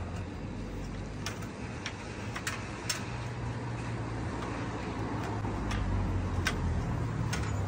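Sharp plastic clicks, about eight spread unevenly, as an LED batten fixture is pressed and fitted into place by hand, over a steady low hum of street traffic.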